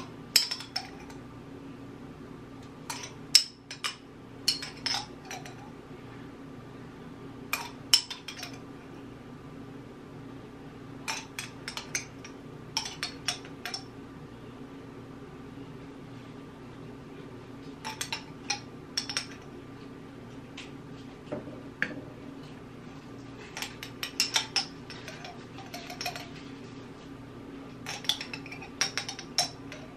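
A small metal spoon clinking and scraping against the inside of a small glass jar of cherries, in short irregular clusters of clicks, over a steady hum.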